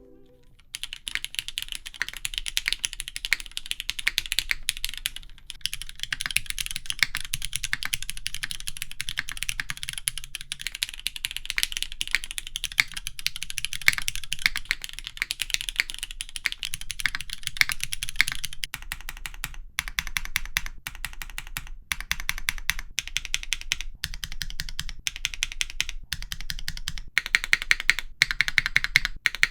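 Typing on a Sebas mechanical keyboard with Cherry MX Black linear switches on an aluminum plate, in a polycarbonate case with a gummy O-ring mount. Fast, continuous typing for about eighteen seconds gives way to slower, separate keystrokes, and the typing picks up again near the end.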